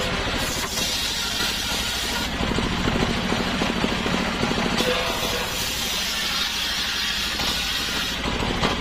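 Stationary diesel engine running steadily, driving a belt-driven circular saw blade through sengon (albasia) logs. The high cutting noise of the blade in the wood comes and goes over several passes, above the engine's even pulsing.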